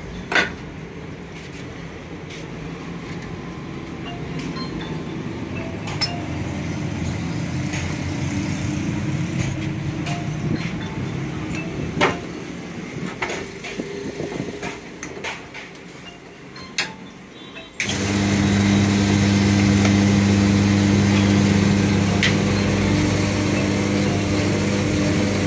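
Metal engine cylinder block being handled, with scattered knocks and clicks. About two-thirds of the way through, a workshop machine's electric motor starts a steady, even hum that carries on to the end.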